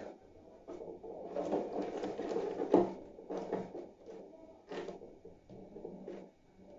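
Toroidal inductors being set down and shifted about on a wooden desk: a run of uneven knocks and clatter, loudest a little under three seconds in, with one more sharp knock near five seconds.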